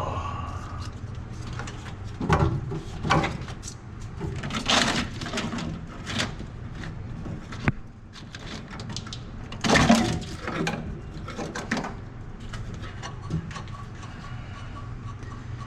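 Irregular metal clanks, knocks and scrapes of hand work stripping rusted parts off a pickup truck's body and frame, loudest near the start and again about ten seconds in, over a steady low hum.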